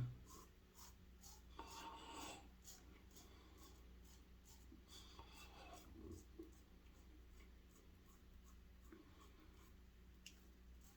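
Faint scraping strokes of a razor cutting through lathered stubble, a few short strokes with quiet gaps between.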